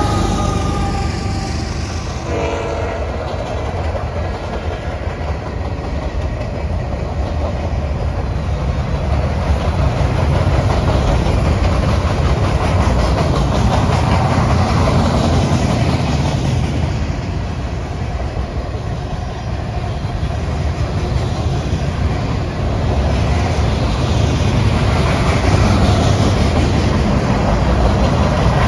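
Diesel freight train rolling past at close range: a steady heavy rumble and the clatter of wheels over the rail joints as a string of covered hoppers and boxcars goes by. It is loudest at the start, as the last locomotive passes.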